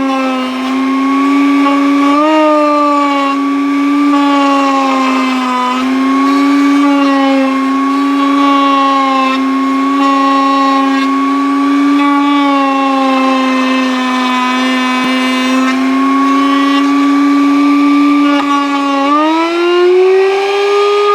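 Milling spindle (router motor) whining steadily as it cuts the groove into the edge of a sign letter's face. The pitch wavers slightly under the cut and rises near the end.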